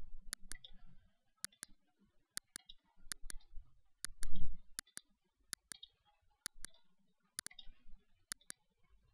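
Computer mouse buttons clicking, each click a quick press-and-release pair, about once a second, as context menus are opened and closed. A low thump comes about four seconds in.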